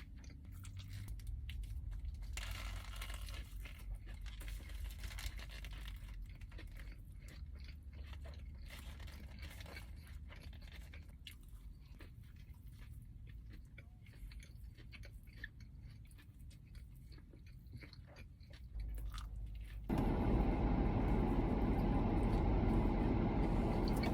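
A person chewing and crunching fast food, with many small mouth clicks. Near the end a much louder steady rushing noise cuts in suddenly.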